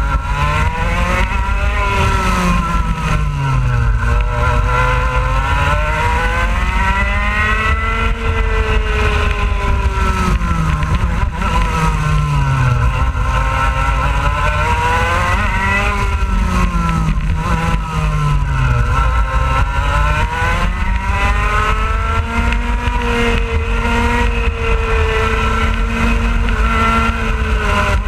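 IAME X30 125cc two-stroke kart engine heard onboard at racing speed, its pitch rising along the straights and falling away into the corners several times over.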